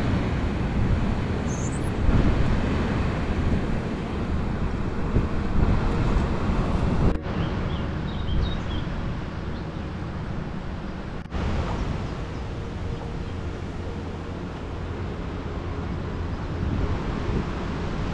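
Wind buffeting the microphone with a steady low rumble, cut by two brief dropouts near the middle.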